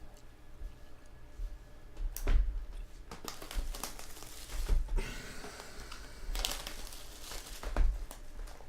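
Trading card packs and cards being handled: wrappers crinkling and rustling, with three sharp knocks on the table.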